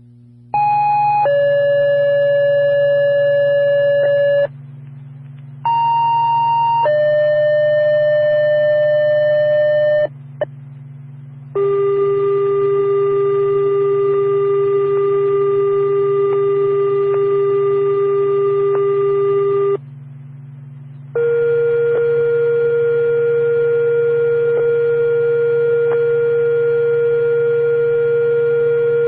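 Fire-department dispatch paging tones over a radio: two two-tone sequential pages, each a short higher tone stepping down to a lower tone held about three seconds, then two long steady alert tones of about eight seconds each. A steady low hum from the radio runs underneath.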